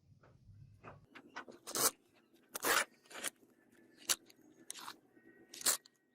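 A series of short, irregularly spaced scraping strokes, about half a dozen loud ones with fainter ones between.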